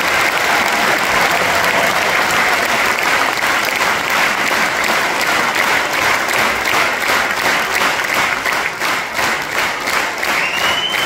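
Large theatre audience applauding an ovation. About two-thirds of the way through, the clapping settles into rhythmic clapping in unison.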